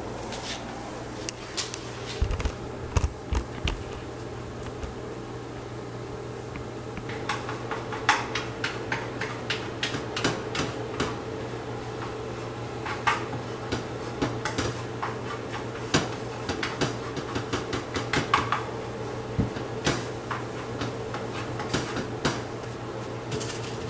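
Kitchen cooking clatter: utensils knocking and scraping against pans and dishes at the stove, in irregular clicks and knocks. Under it runs a steady fan hum.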